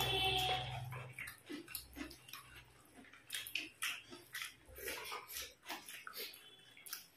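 Close-up eating sounds of people eating rice and chicken curry by hand: wet chewing and lip-smacking clicks, with fingers squishing rice on the plates. A brief high whine sounds right at the start.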